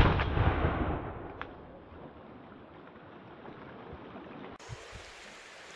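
A single gunshot from a Barak BR99 12-gauge semi-automatic shotgun, loud and sudden, echoing off for about a second. After it comes the steady rush of a fast, muddy creek.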